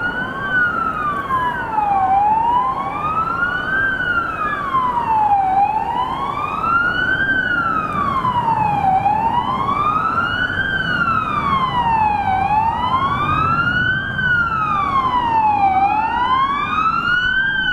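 Toy car's electronic siren wailing, its pitch rising and falling slowly, about once every three and a half seconds. A second, offset siren sweep overlaps it briefly near the start and again near the end.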